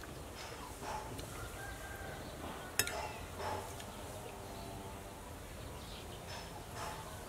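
A metal spoon clinks once, sharply, against a soup bowl about three seconds in, over quiet yard ambience with a few short bird calls.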